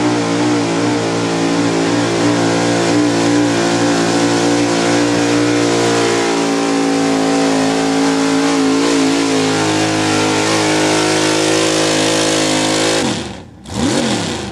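Pickup truck engine running flat out at high, steady revs under heavy load, pulling the weight sled through dirt. Near the end the engine suddenly drops off, then gives one quick rev down and back up.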